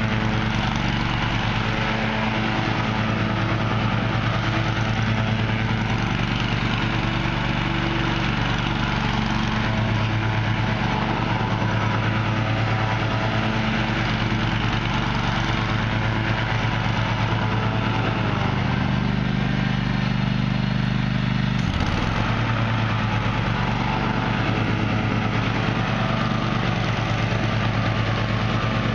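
Cub Cadet i1050 Time Saver zero-turn rider's 25 HP engine running steadily as the mower drives and turns on the lawn. About three quarters of the way through the engine note dips briefly, with a short knock, then settles back.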